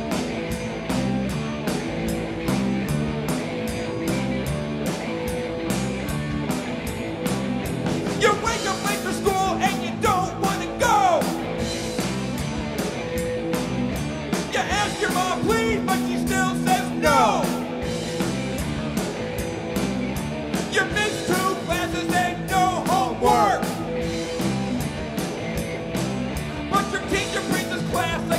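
Live rock band playing loud: electric guitars and bass over a drum kit keeping a steady beat. High sliding lead lines come in about eight seconds in and return a few times.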